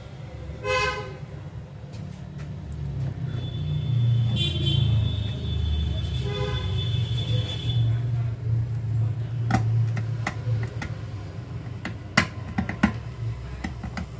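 A vehicle horn honks, briefly about a second in and again for several seconds from about three seconds in, over a steady low rumble. A few sharp clicks come near the end.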